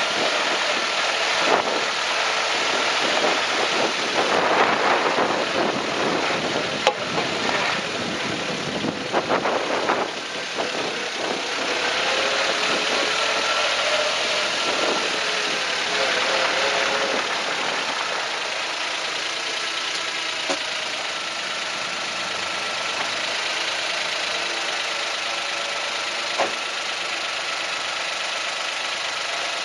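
Suzuki Jimny JB23 driving, heard from underneath at the frame: engine running over steady road and chassis noise. A few sharp single knocks come at irregular intervals several seconds apart, the kind of 'kakon' clunk from the suspension that the owner is tracking down as an abnormal noise.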